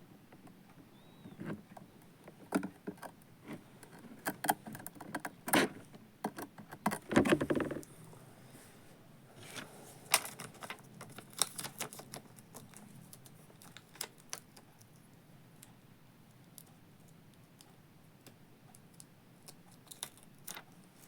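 Irregular clicks, taps and light rattles of small hard objects being handled, densest and loudest in the first third, with a short cluster of knocks about seven seconds in, then only scattered clicks.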